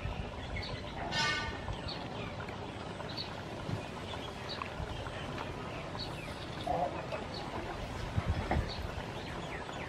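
Birds chirping in short high calls throughout, with a chicken clucking once about a second in. A few soft low thumps come near the end.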